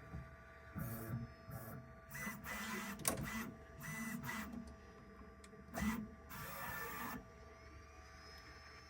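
Snapmaker U1 3D printer running a print: its stepper motors whir in a string of short, uneven bursts of movement over a faint steady hum. The movements stop about seven seconds in.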